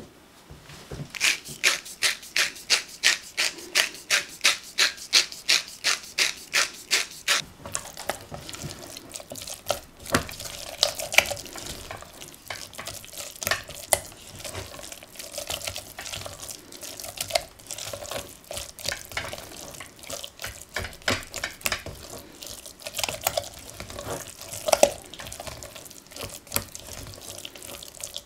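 A salt grinder being twisted over the pan, a steady run of crunching grinds about three or four a second for the first seven seconds or so. Then a spatula stirs and scrapes thick parsnip purée in a stainless steel saucepan, squelching, with now and then a sharp knock against the pan.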